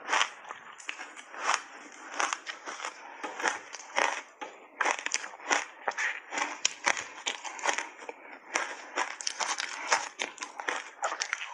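Refrozen ice coated in matcha powder being bitten and chewed close to the mouth: a rapid, irregular run of sharp crunches and cracks that grows denser after about five seconds.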